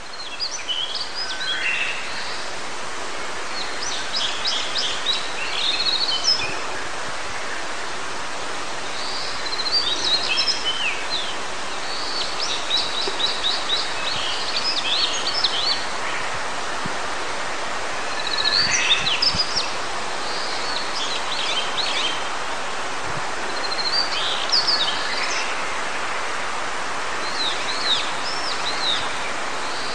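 Male Daurian redstart singing short, quick phrases every few seconds, some of them fast trills. It is a breeding-season song from a male the uploader thinks is nesting. A steady rush of mountain stream and wind runs underneath.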